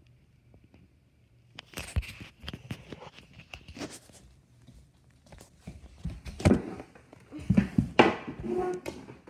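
Scattered knocks, thumps and rustles of a phone being handled and moved about, louder in a cluster in the second half.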